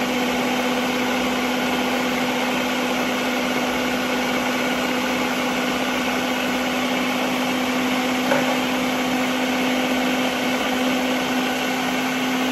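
Countertop blender running steadily on low speed with an even motor hum, mixing a thick, mayonnaise-like homemade Caesar dressing as it is loosened with water.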